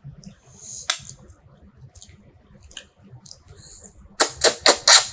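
Close-up eating sounds of fish curry and rice: scattered small wet mouth clicks, then a quick run of four or five loud smacks about four seconds in.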